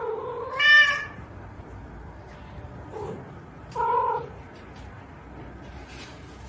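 Domestic cat meowing: a loud, high-pitched meow just under a second in, a faint one at about three seconds, and a lower meow at about four seconds.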